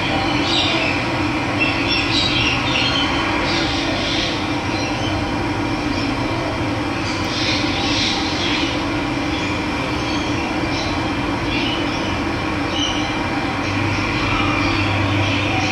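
Steady rush of running water, with birds chirping over it in scattered bursts.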